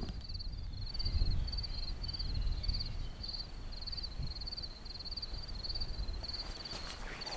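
A cricket chirping in a steady, high-pitched, even rhythm of about three chirps a second, over a low rumble on the microphone.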